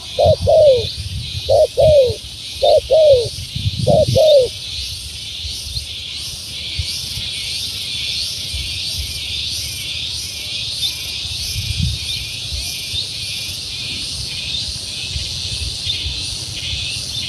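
Spotted dove cooing: four pairs of short, falling coo notes over the first four and a half seconds, then stopping. A steady high-pitched chirring continues in the background throughout.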